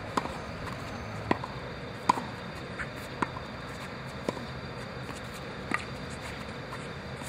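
Tennis balls struck with rackets during a volley exchange: about six sharp pocks, roughly one a second, the loudest about two seconds in, over a steady low hiss.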